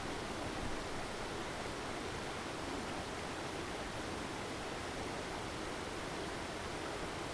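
Ambience of an empty indoor swimming hall: a steady, even hiss.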